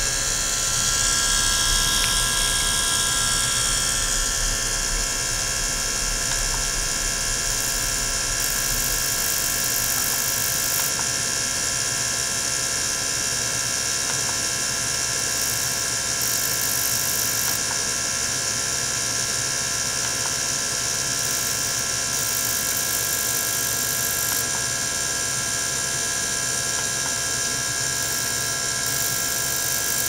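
Small electric liquid-circulation pump running steadily, circulating water through an ultrasonic tank, with a hum made of several steady high tones. A low hum drops out about nine seconds in, and a faint very high hiss comes and goes a few times.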